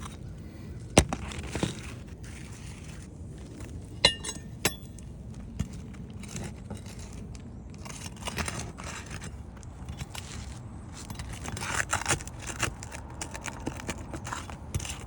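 Metal tool knocking, clinking and scraping against brittle asphalt shingles as they are loosened and their nails worked out. Sharp knocks about a second in, a brief ringing clink about four seconds in, and gritty scraping near the middle and again later.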